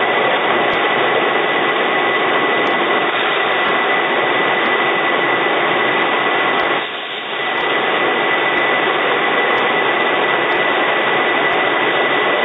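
Steady machine noise of a filling line for large plastic drums: an even hiss with a steady high whine through it and a faint tick about once a second. The level drops briefly a little past the middle.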